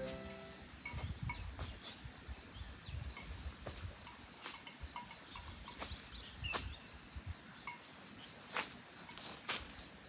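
A steady, high-pitched insect chorus drones on two pitches. Footsteps thud and crunch through leaf litter and undergrowth, with scattered small clicks and snaps.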